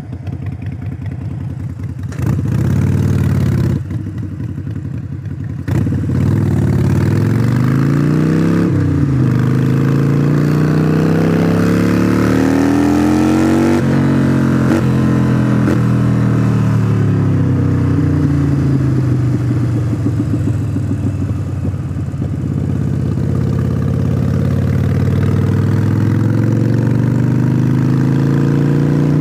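2017 Harley-Davidson Iron 883 Sportster's air-cooled 883 cc V-twin in Stage 1 tune, with Vance & Hines Shortshots exhaust, Fuel Pak FP3 and a cold air intake. It runs low with a brief rev about two seconds in, then pulls away with the revs climbing and dropping sharply twice at gear changes. The revs then fall steadily as it slows, and the throttle opens up again near the end.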